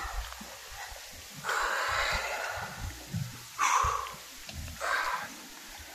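A person breathing heavily: three loud breaths, the first and longest a little over a second in, the next two shorter.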